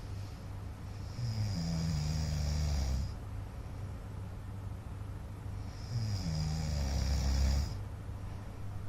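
A man snoring in his sleep: two long snores about four and a half seconds apart, each a low-pitched drone with an airy hiss on top, over a steady low background hum.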